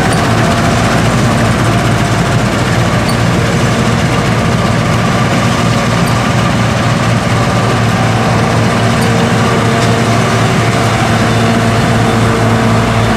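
John Deere 7720 Turbo combine running steadily while harvesting wheat: an even, loud engine hum.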